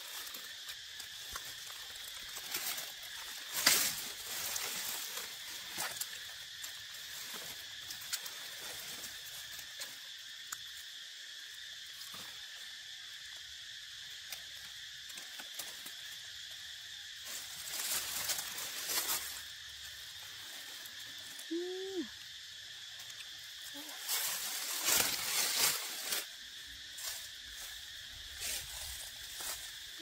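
Forest insect chorus, a steady high-pitched drone of several constant tones, with a few loud bursts of dry leaves and twigs rustling and crackling.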